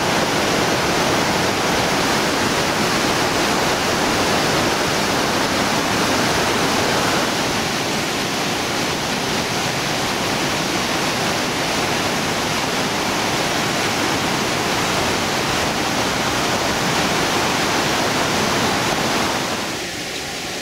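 Loud, steady rush of heavy whitewater churning in the Iguazu River near the falls. About seven seconds in it gives way to a slightly lighter rush of river rapids, and near the end it drops lower.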